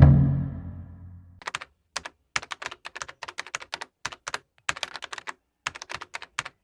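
A low thump that fades over about a second, then computer keyboard typing: irregular runs of quick key clicks with short pauses between them.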